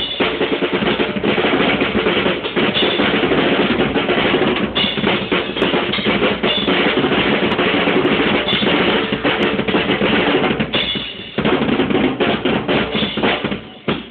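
Acoustic drum kit played continuously with fast, dense hits on the drums and cymbals. The playing breaks off briefly about eleven seconds in, then picks up again.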